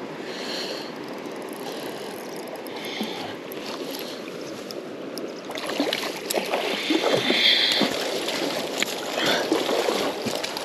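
River water running steadily. About five and a half seconds in, louder, irregular splashing joins it.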